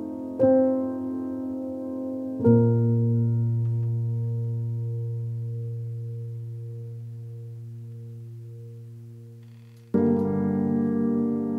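Background music: slow piano chords. One chord is struck about two seconds in and left to ring and fade for several seconds before the next comes in near the end.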